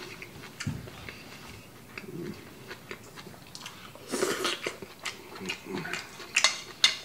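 A person chewing and slurping spicy buckwheat noodles up close, with wet mouth clicks and smacks. Two louder short slurps come about four and six and a half seconds in.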